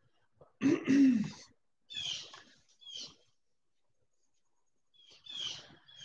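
Pet birds calling in short separate bursts: a few quick chirps, each a falling note, and one louder, harsher, lower-pitched call about a second in.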